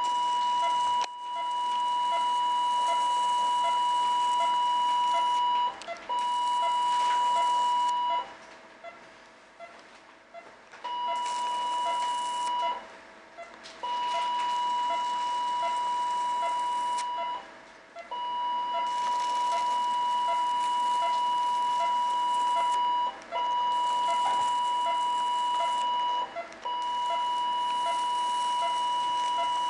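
Electrosurgical (diathermy) unit's activation tone: a steady high beep that sounds in stretches of two to five seconds, about seven times, each time the cautery pen is keyed to cut or coagulate, with a hiss alongside. Faint short beeps repeat a little faster than once a second underneath.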